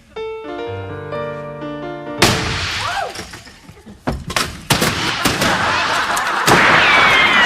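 A short musical phrase of held notes, then a sudden crash with breaking, followed by a rapid string of gunshots, about three or four a second, from a gun firing uncontrollably.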